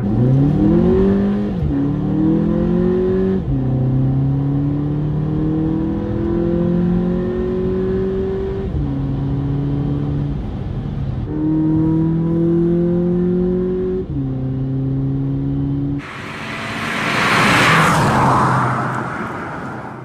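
Volkswagen Polo GTI's 2.0 TSI turbocharged four-cylinder engine accelerating through the gears: its pitch climbs and drops back at each upshift, about three times, with a steady stretch in between. In the last few seconds a loud rushing noise swells and fades over the engine.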